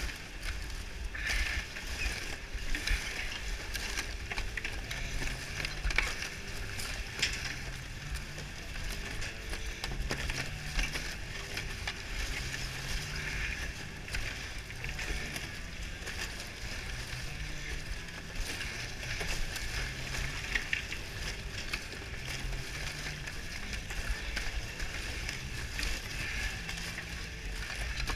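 Snow crab being sorted by hand on a metal sorting table aboard a crab boat: shells and legs clatter in short clicks over the boat's steady rumble and hiss.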